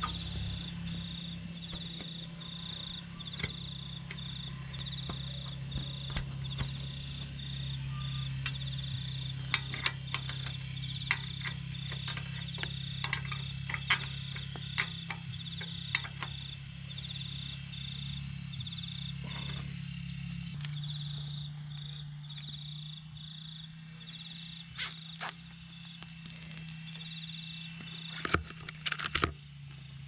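Scattered clicks and rustles of hands handling rubber hydraulic hoses and fastening them with cable ties on a steel plough frame, with louder rustling bursts near the end. Behind it, an insect chirps steadily in quick pulses over a low steady hum.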